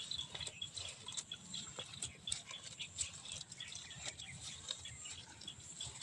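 A young cow grazing: quiet, irregular crunching and tearing as it pulls and chews dry grass.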